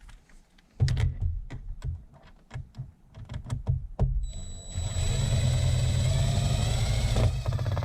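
Clicks and knocks of parts and screws being handled, then a power drill/driver runs for about three seconds, a steady whine rising a little in pitch as it drives a screw into the armrest hinge, and cuts off suddenly.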